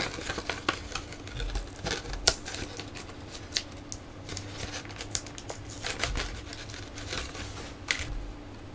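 Hard plastic action figures being handled, with irregular light clicks and taps of plastic on plastic and a few sharper knocks.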